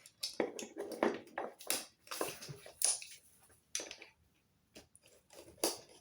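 Irregular clicks, scrapes and rustles of hands and tools working the wire connections of a plastic pull cord light switch, busiest in the first half.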